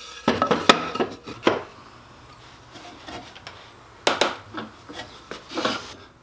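A thin cedar board being handled and set upright against a workbench: wooden knocks and clatters, a cluster in the first second and a half, then more from about four seconds in.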